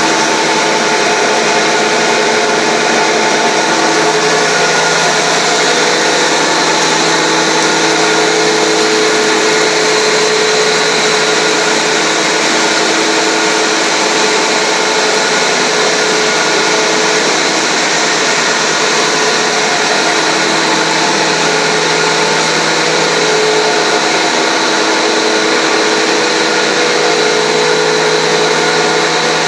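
Sawdust fine grinder machine running steadily: a loud, constant whir with a low hum and several unchanging tones above it.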